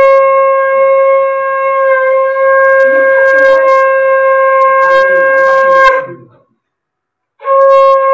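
Conch shell (shankha) blown in a long, steady, single-pitched blast that stops about six seconds in. After a short pause, a second blast begins near the end.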